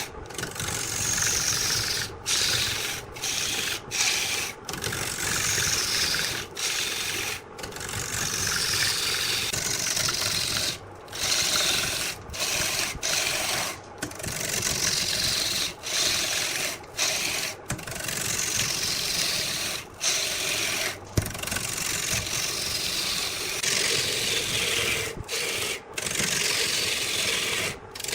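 Wood spinning on a lathe being worked with a turning tool or abrasive, making a continuous scraping noise. It comes in repeated strokes that each fall in pitch, and is broken by many short, abrupt gaps.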